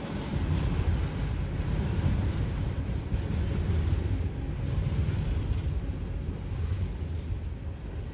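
Empty coal hopper cars of a CSX freight train rolling past on the rails: a steady low rumble with wheel-on-rail noise, easing off slightly near the end.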